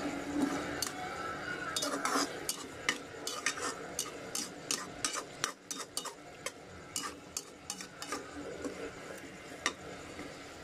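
Metal spoon stirring and scraping a thick paste in a steel frying pan, clinking against the pan in quick irregular strokes several times a second, over a sizzle of frying.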